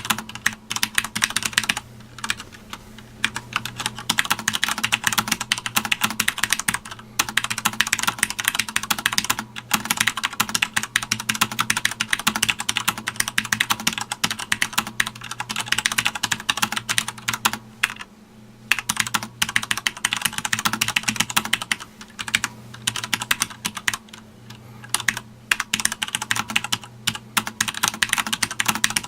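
Continuous touch-typing on a Sanwa Supply SKB-MK2BK mechanical keyboard: a dense run of key clicks broken by brief pauses, the longest about 18 seconds in, over a faint steady low hum.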